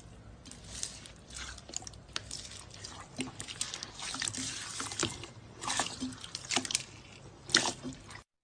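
Slime being squeezed and pressed by hand, making a string of irregular wet clicks, pops and squelches that cut off abruptly near the end.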